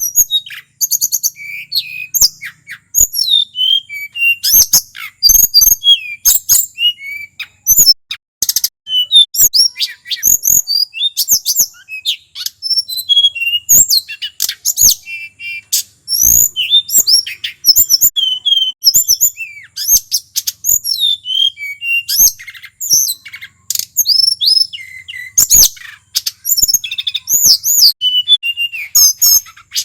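Male tledekan gunung, a blue flycatcher, singing without pause: a fast, varied run of high whistled notes and trills, broken only by short gaps.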